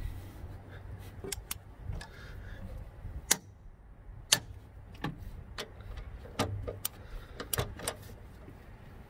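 Torque wrench clicking as the strut top-mount bolts are tightened to 45 ft-lb: a string of single sharp clicks at irregular intervals.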